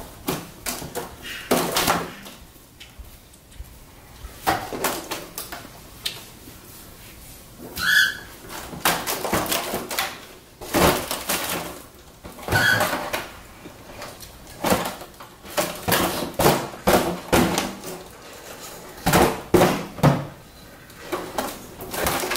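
Foil (Mylar) balloon crinkling and rustling in irregular bursts as a baby grabs and shakes it.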